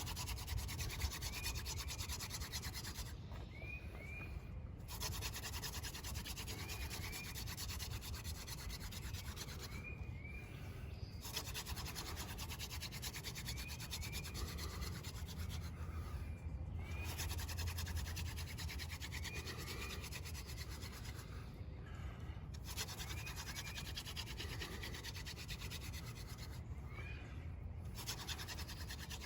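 Hand drill fire-making: a horseweed spindle spun between the palms in the notch of a water oak fireboard, a steady dry wooden rubbing to build an ember. It breaks off briefly about every five to six seconds, as the hands go back up the spindle.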